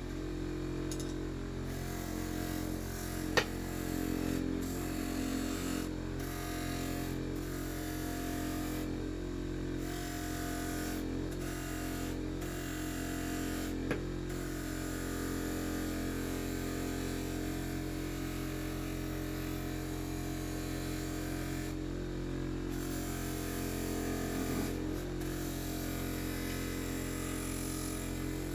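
A small electric power tool running steadily with a constant motor hum, with a sharp click about three seconds in and another about fourteen seconds in.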